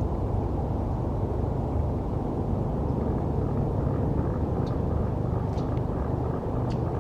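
Steady low rumble of distant city traffic, with a few faint, short, high bird chips in the second half.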